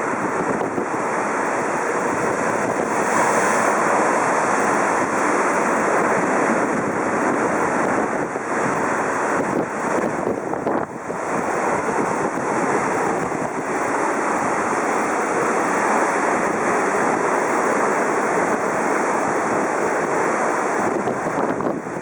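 Sea waves washing in steadily, mixed with wind on the microphone.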